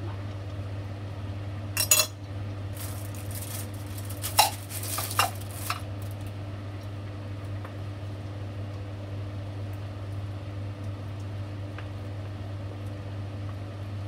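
A utensil scraping and knocking against a metal cooking pot while stirring vegetables in sauce, with a cluster of clanks between about two and six seconds in, the loudest just past four seconds. A steady low hum runs underneath and is all that is left for the second half.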